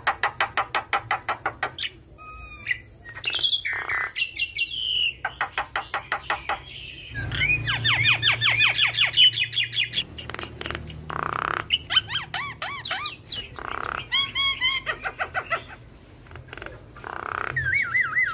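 Javan myna in full song: a loud, varied run of phrases mixing rapid trains of sharp repeated notes, about seven a second, with wavering whistles and gliding calls, broken by short pauses.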